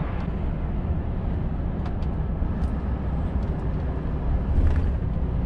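Volvo FH460 LNG semi truck driving, heard from inside the cab: a steady low engine and road rumble with a few faint light clicks.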